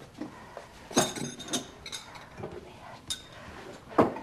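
Dishes and glassware clinking and knocking as things on a cluttered table are picked up and moved: a few separate clinks, the loudest near the end.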